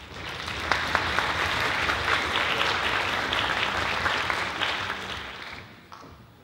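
Audience applauding, rising quickly and dying away about six seconds in.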